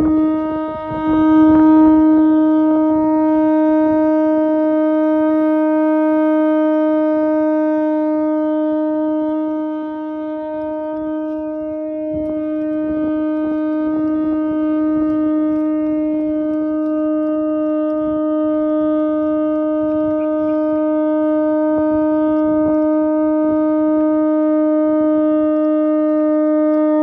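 Conch shell horn blown in one long, unbroken note at a steady pitch, held for nearly half a minute, dipping slightly in loudness about ten seconds in.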